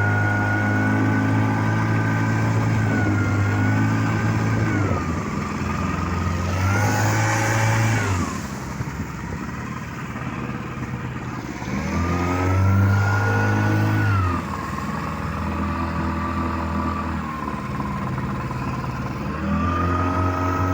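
Vikhr two-stroke outboard motor running on test, its revs rising and falling as the throttle is worked: engine speed drops about five seconds in, surges briefly a few seconds later, settles low, climbs again midway, falls back, and picks up once more near the end.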